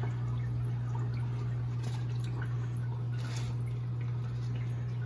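HortiPots aeroponic clone machine running: its reservoir pump hums steadily while water sprays and drips inside the tank.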